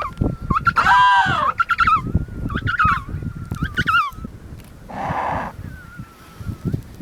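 Emperor penguins calling: a thin, steady high whistle runs under a series of louder pitched calls, the loudest and longest about a second in, with shorter calls following. About five seconds in there is one harsh, noisy call. Low rumbling sits underneath throughout.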